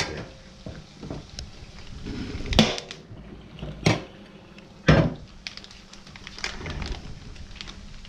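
A stainless steel bowl knocked and pressed down on empanada dough in a plastic bag on a plastic cutting board: a handful of sharp knocks, three loud ones in the middle, with plastic rustling as the dough is handled.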